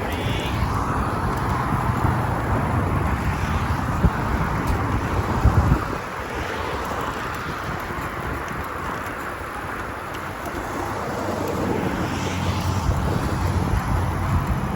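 Wind buffeting the microphone over steady road and vehicle noise.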